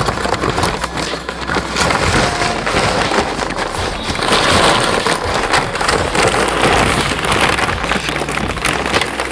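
Takeout paper wrappers and bag crinkling and rustling close to the microphone as the food is handled, a dense crackle with many small clicks.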